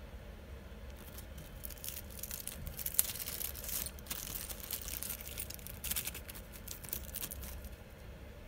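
Small clear plastic zip-lock bag crinkling in the hands as it is opened and the spare parts are shaken out, in irregular crackly bursts with one sharp click about three seconds in.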